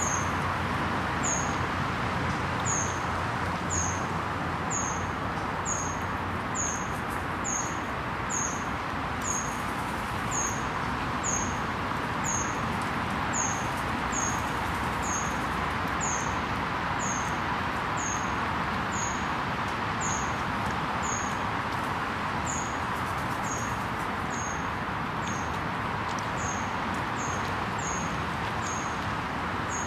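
A small bird repeating one short, high, falling chirp about once a second, over a steady hiss of background noise.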